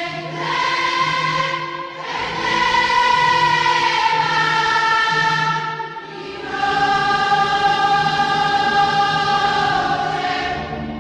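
Choral music: voices singing long held chords in three slow swells over a steady low note, fading near the end.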